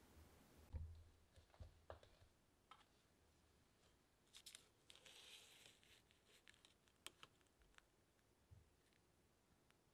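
Faint scraping and rustling of a metal cake server on parchment paper beneath crumbly apple crumble bars, with a few soft clicks and taps.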